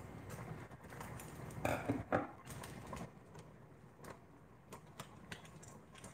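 Ramen seasoning packet being handled and torn open: a few short crinkling rustles about two seconds in, then sparse light ticks.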